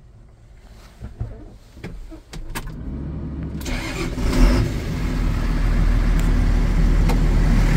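The MAN six-cylinder diesel engine of a 2007 Fendt 920 Vario TMS tractor is started, heard from inside the cab. A few clicks come first, then the engine is cranked and catches about three and a half seconds in. It flares briefly and settles to a steady idle at about 800 rpm.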